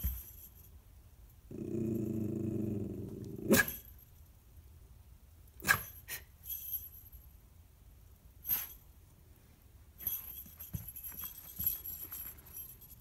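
Miniature schnauzer growling, a warning grumble at joggers passing outside: one low growl about two seconds long, followed by a few short sharp sounds. Near the end, small bells on her costume jingle as she moves.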